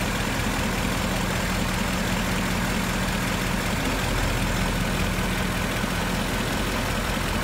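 Ford Mustang GT's 5.0-litre V8 idling steadily, with an even rushing noise over the engine note.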